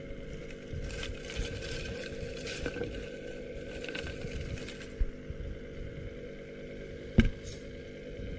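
Rustling handling noise over a steady low hum, with a thump about five seconds in and a sharp, louder knock about seven seconds in.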